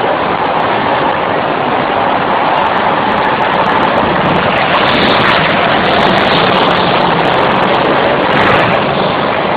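Go-kart engines running as karts lap an indoor track, a loud steady engine noise inside an enclosed concrete hall.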